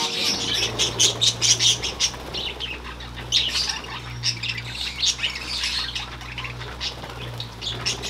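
A flock of budgerigars chattering: many short squawks and chirps overlapping continuously, with a steady low hum underneath.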